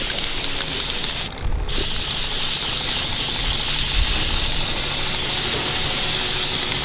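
Aerosol spray-paint can hissing in a steady spray. It stops briefly about a second and a half in, then sprays on.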